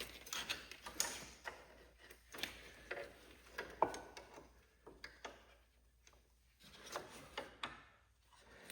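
Faint, scattered clicks and taps of metal parts being handled while a brake spring is pulled into place with a rope under a garden tractor, with a brief squeak about four seconds in.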